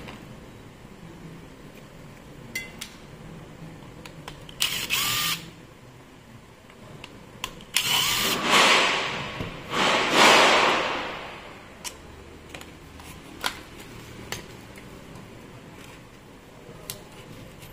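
Cordless screwdriver running in three short bursts, backing screws out of an angle grinder's plastic rear housing. The last burst winds down as the trigger is let go. A few light clicks of parts being handled come in between.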